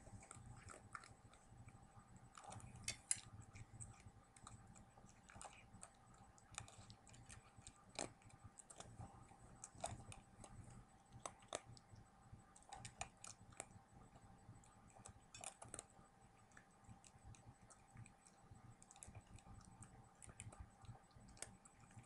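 A cat eating dry kibble fast from a metal bowl: faint, irregular crunching clicks as it chews.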